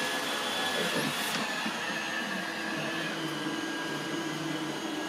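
iRobot Roomba 805 robot vacuum running steadily across the floor, a whirring hiss with a thin steady whine and a lower hum.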